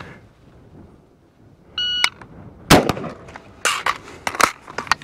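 A shot-timer beeps about two seconds in, then an IWI Carmel 5.56 piston rifle fires two shots about a second apart. Sharp clacks and another loud report follow as a magazine is swapped mid-drill.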